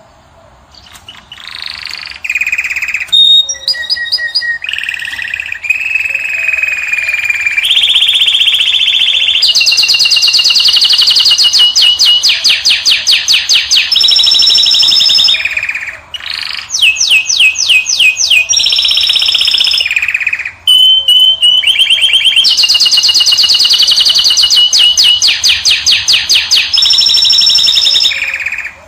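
Caged finch singing a long, loud song of rapid trills and clear held whistled notes. It starts about a second in and pauses briefly twice.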